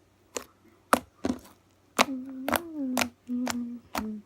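Slime being kneaded and stretched by hand, giving sharp clicks and pops every half second or so while it is tested for whether it needs more activator. A low hum joins it for the second half.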